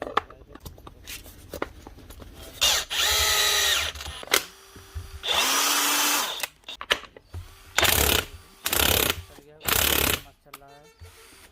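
Cordless drill motor run in five separate trigger pulls: two runs of about a second, then three shorter half-second bursts, with small clicks and handling knocks between them.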